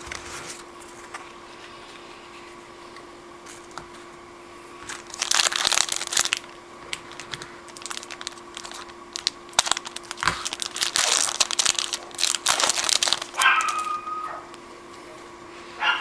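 Foil wrapper of a football card pack crinkling and tearing as the pack is opened, in two main bursts about five and eleven seconds in, with light clicks of card handling between.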